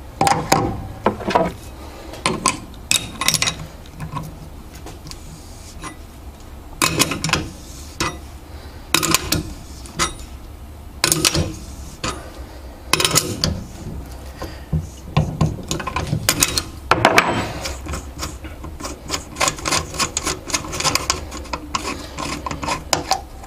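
Irregular metallic clicks, scrapes and knocks of a hand rivnut setting tool installing a rivnut in thin sheet metal, coming in clusters a second or two apart.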